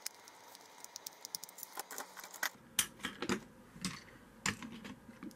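Scattered light plastic clicks and taps as a motorized toy engine and its coaches are handled and set down on a wooden desk. For about the first two and a half seconds there is a faint steady whine from the toy engine's small electric motor running.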